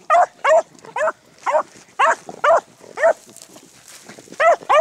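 Beagle hounds baying on a rabbit's track: a run of short, rising-and-falling barks, about two a second, with a brief pause near the end.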